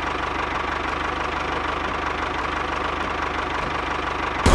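Tractor engine running steadily with an even low chug and a faint steady whine. A louder sound with a falling pitch cuts in at the very end.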